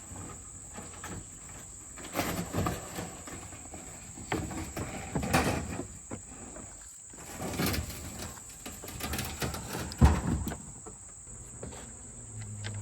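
Crickets or other insects trilling steadily at a high pitch, over scattered rustling and knocks of things being handled, with one sharp knock about ten seconds in. A low steady hum starts near the end.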